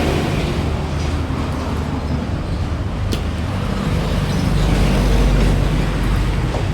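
Steady low machine rumble, with a single sharp click about three seconds in.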